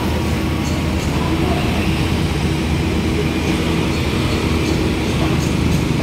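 Steady low drone of motor vehicle engines running.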